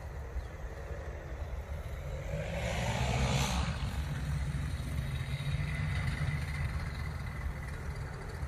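Paramotor engine and propeller running steadily, swelling louder about three seconds in and then easing back.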